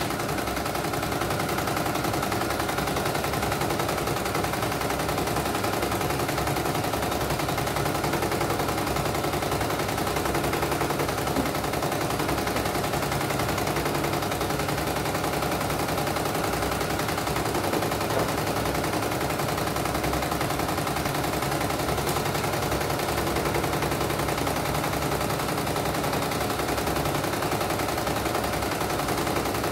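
CNY E900 computerized embroidery machine stitching a design, a fast, steady clatter of needle strokes. It is a test run after a mainboard replacement, with the machine running smoothly.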